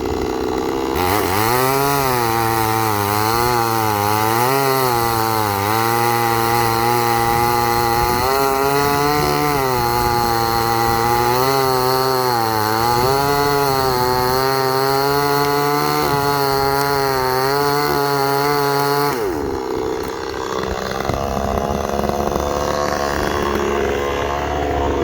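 Chainsaw cutting through a dead tree, its engine note rising and sagging over and over as it works under load. About nineteen seconds in the engine note drops away and a rougher, unpitched sound carries on to the end.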